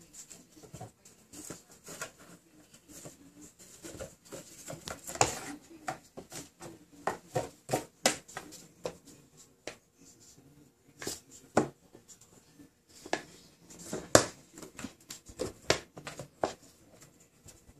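Kittens scuffling in and around a cardboard box on a hardwood floor: an irregular run of claw scratches, scrapes and soft knocks of paws against the cardboard and wood, with a sharper knock about fourteen seconds in.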